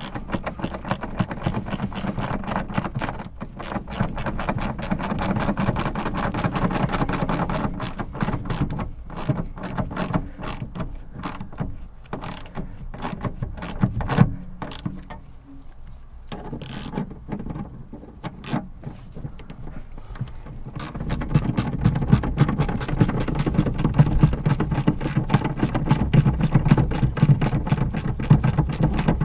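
Hand ratchet clicking rapidly while tightening a bolt. The clicking thins out for several seconds around the middle, then picks up again.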